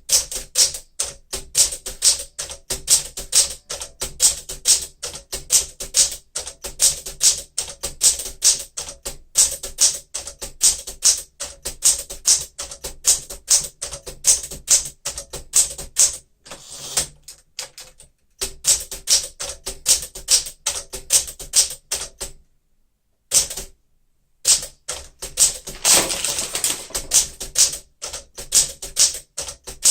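A 1963 Smith-Corona Sterling manual typewriter being typed on fast, its typebars snapping against the platen in a quick, uneven stream of strikes. The typing pauses briefly twice along the way, during a character-by-character typing test.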